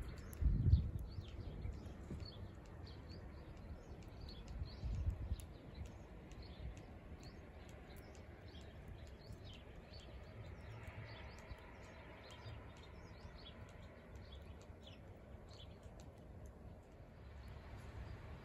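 Small birds chirping, short high calls repeated throughout. A couple of low rumbles come just after the start and about five seconds in.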